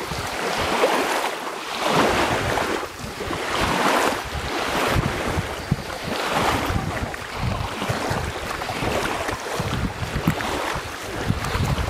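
Wind buffeting the microphone over rushing water, swelling and easing every second or two.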